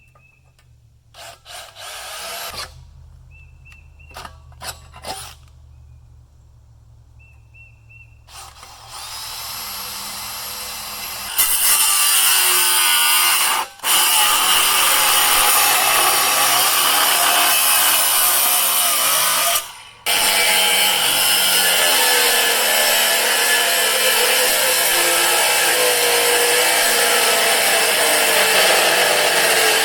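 A cordless power tool working metal, running steadily under load with two brief pauses. Its battery is running nearly flat, and the metal is left hot. Light clicks and handling come before the tool starts, about eight seconds in.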